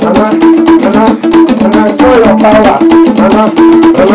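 Loud music with a steady beat of drums and rattles under a repeating melodic line.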